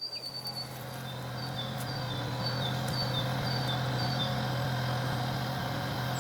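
An engine running steadily, a low hum, with a bird's short high chirps repeating about twice a second over it.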